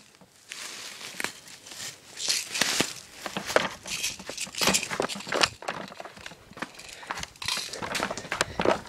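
Rustling and crunching of dry leaves and undergrowth as someone moves through them, with scattered sharp clicks.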